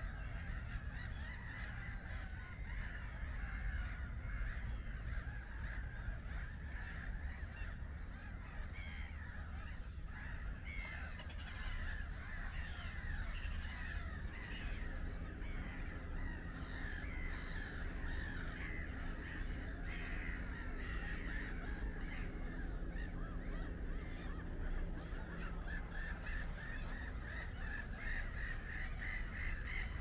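A large flock of birds calling, with many short calls overlapping continuously over a steady low rumble.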